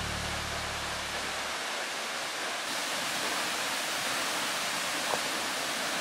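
Steady rushing roar of Seljalandsfoss, a tall waterfall plunging into its pool. The low notes of a music bed die away in the first second and a half.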